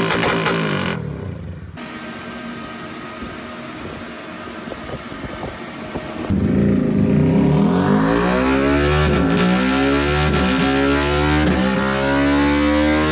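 Honda RS150 motorcycle's single-cylinder engine through an aftermarket exhaust. It runs loud for about a second, drops to a quieter, rougher stretch, then about six seconds in it comes in loud again and is revved up and down over and over, the pitch rising and falling.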